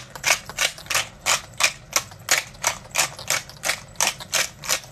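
Pepper mill grinding coarse black pepper: an even run of short clicks, about three a second.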